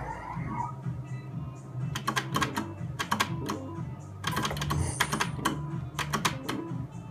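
Merkur El Torero Plus slot machine running its spin sounds: quick runs of sharp electronic clicks, about once a second from two seconds in, over the game's looping music.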